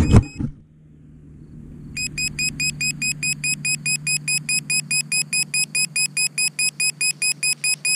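Emax quadcopter crashing into grass: a short impact as its motors cut out. About two seconds later its beeper starts a rapid run of short high beeps, about four a second, the kind of alarm that helps find a downed quad, with a faint steady hum underneath.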